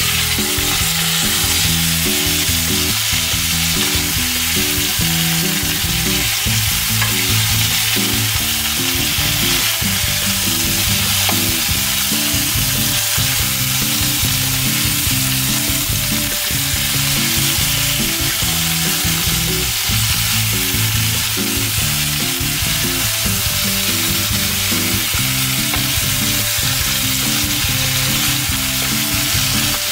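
Whole shell-on prawns sizzling and frying in butter and olive oil in a pan. The sizzle jumps louder right at the start as the lid comes off. A wooden spatula stirs and scrapes the prawns around the pan.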